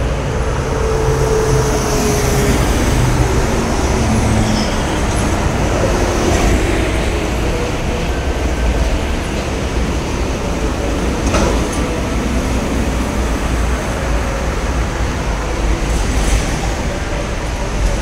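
Heavy traffic of buses, trucks and cars passing on a multi-lane toll road, a steady low rumble with engine and tyre noise, and a couple of brief knocks in the second half.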